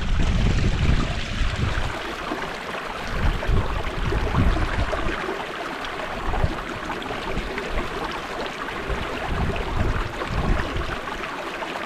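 Strong wind buffeting the microphone in irregular gusts, a low rumbling flutter over a steady rushing hiss.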